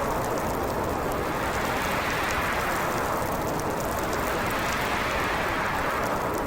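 Winter storm wind blowing steadily, its hiss swelling up and sinking back in pitch as the gusts come and go, with faint light ticking over it.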